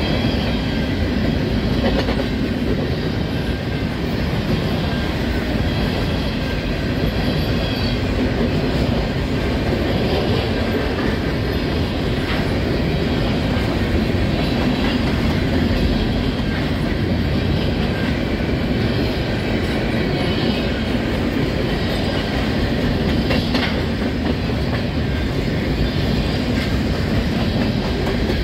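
Covered hopper cars of a grain train rolling past: a steady, loud rumble of steel wheels on rail, with occasional clacks and a faint high wheel squeal now and then.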